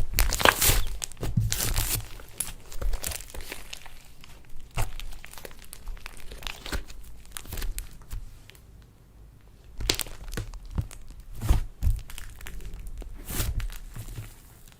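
Slime being squished and stretched by hand, making a run of crackly, crinkling pops with a short lull about two-thirds of the way through.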